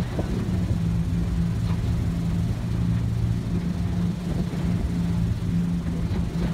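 Engine of a rigid inflatable boat running steadily under way: a low, even drone.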